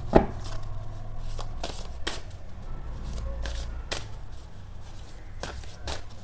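A deck of oracle cards being shuffled and handled by hand: a series of irregular soft card slaps and rustles.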